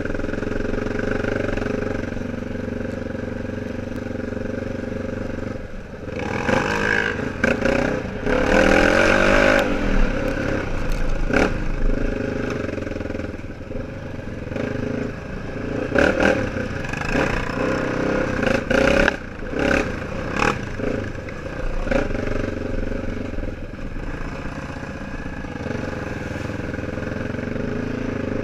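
ATV engine running along a rough trail, revving up twice in longer pulls, with clattering knocks from the quad's body and rack as it rides over bumps.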